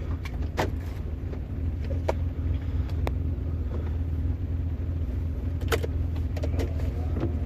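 BMW E34's engine idling steadily with a low hum, with scattered sharp clicks over it.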